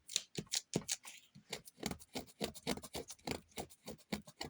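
Crinkling and crackling of a cellophane-like plastic laminate on a paperback's cover as it is handled: a fast, irregular run of small crackles.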